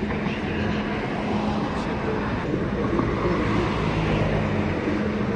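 Railway station platform ambience: the steady hum of a train running with a constant low drone, with background voices.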